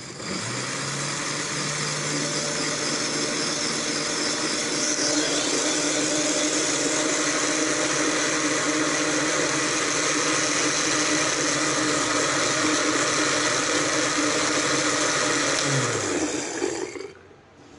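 Electric countertop blender motor running, blending chopped peaches with milk: it spins up about half a second in, runs steadily, then winds down and stops near the end.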